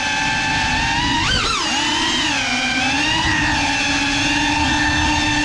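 GEPRC Cinelog 35 cinewhoop's brushless motors and ducted 3.5-inch propellers whining as it flies, the pitch following the throttle: a quick rise and fall about a second in, then held fairly steady, over a low rushing of prop wash.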